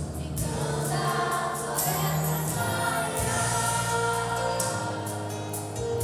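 Children's and youth choir singing a church song over a music accompaniment.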